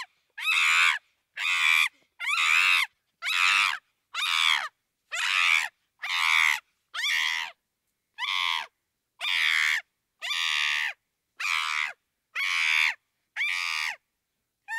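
Chimpanzee screaming: a run of short, high-pitched screams, each about half a second long, repeating a little more than once a second with silence between them.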